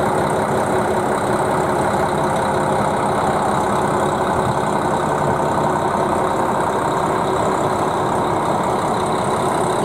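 KiHa 261 series diesel multiple unit idling at the platform, its diesel engines running with a steady, unchanging hum.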